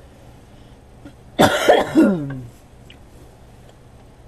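A person coughing: two coughs in quick succession about a second and a half in, the second trailing off in a falling, throaty sound.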